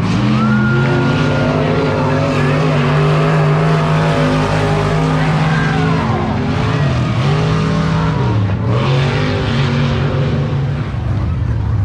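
Engines of several dirt-track race cars running around the oval. Their note drops and climbs again a few times as the cars lift off for the turns and get back on the throttle.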